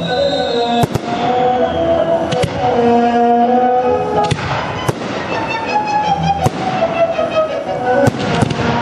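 Fireworks display: sharp bangs of bursting shells every second or two, a few in quick pairs, with a crackling hiss about halfway through, over music with long held notes.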